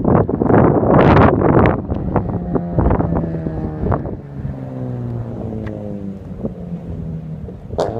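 Toyota Crown's 1JZ-GE straight-six sounding through a one-off custom exhaust. It is loud and rough for about two seconds, then the engine note falls steadily as the revs drop, with a sharp click near the end.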